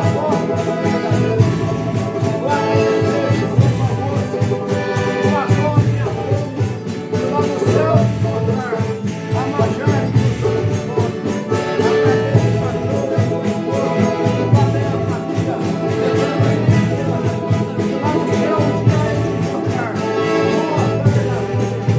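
Folia de Reis music: voices singing a thanksgiving song over instruments, with a tambourine's jingles running through it.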